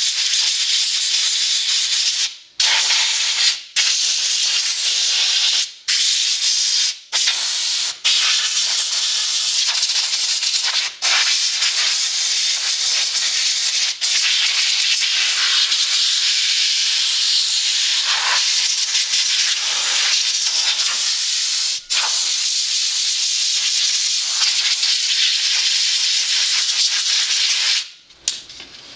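Compressed air from an air compressor's blow gun hissing in long blasts over an RC car. It breaks off briefly about seven times as the trigger is let go, then stops near the end.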